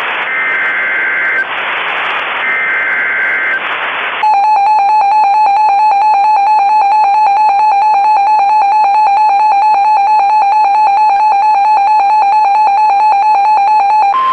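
Mock Emergency Alert System audio. Two short screeching bursts of header data warble between two pitches, with hiss between them. Then, about four seconds in, a loud, steady, buzzy attention tone starts and holds for about ten seconds.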